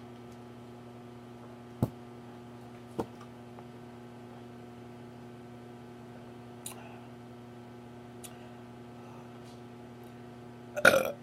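Steady electrical hum with a few sharp, isolated clicks through it, then a loud burp breaks in near the end.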